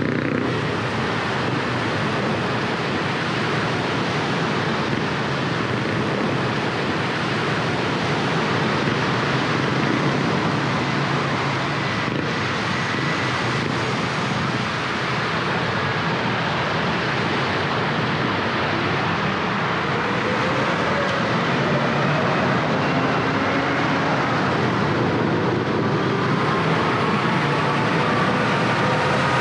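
Steady city traffic on a wet road: tyres hissing on rain-soaked asphalt with engines running, and an engine climbing in pitch in the last few seconds as a vehicle speeds up.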